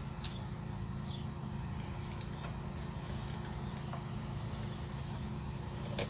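Steady low background hum, with a few faint clicks and brief high chirps.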